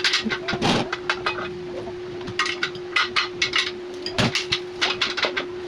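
Steel rack parts clinking and clanking together in quick irregular clusters as the rack is assembled, with a heavier knock a little past four seconds in, over a steady hum.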